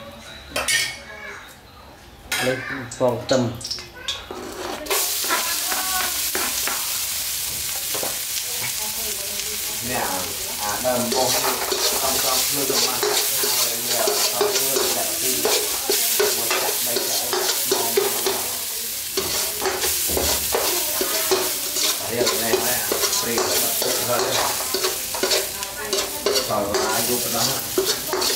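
Chopped garlic hits hot oil in a steel wok and starts sizzling suddenly about five seconds in, after a few light clicks and knocks. It keeps frying while a metal spatula scrapes and stirs it around the pan.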